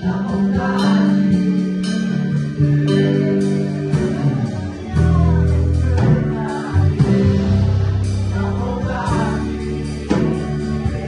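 A small band playing live: Casio Privia PX-5S stage piano, electric bass and drum kit, with women singing over it. Steady drum and cymbal hits keep time under sustained bass and keyboard notes.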